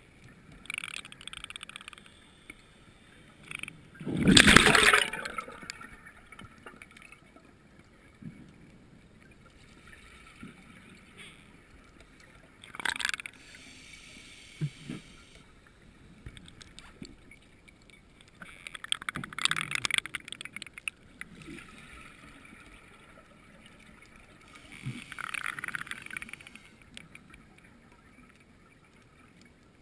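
Scuba regulator breathing underwater: bursts of exhaled bubbles gurgling out about every six seconds, the loudest about four seconds in.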